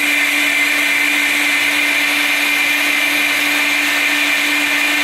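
Personal single-serve blender motor running at a steady high speed with a constant high whine, puréeing a green smoothie.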